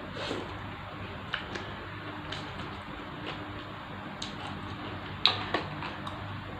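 Eating sounds at a bowl of glass-noodle soup: scattered small clicks and taps, the loudest a sharp pair about five seconds in, over a faint steady hum.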